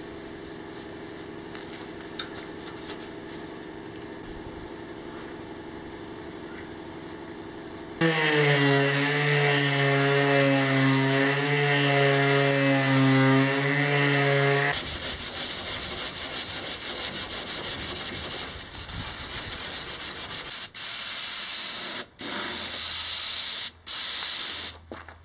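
Electric orbital sander running against a car's bodywork, its motor a steady pitched whine that turns into a coarser rasp as it works the panel. It is followed by a pneumatic spray gun hissing in three long bursts, spraying primer onto the panel.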